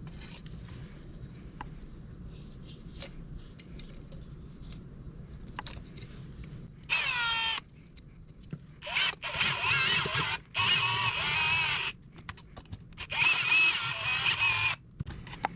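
Cordless drill-driver running in four short bursts in the second half, driving the T27 Torx screws that hold a string trimmer's muffler; the first burst falls in pitch as it winds down. Before that, only a few faint handling clicks.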